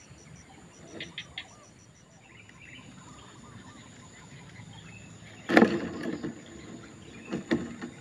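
Downy striated heron chicks begging in the nest as an adult arrives: three short clicks about a second in, faint chirps, then a loud burst of calls about five and a half seconds in and another shortly before the end. A steady high insect drone runs underneath.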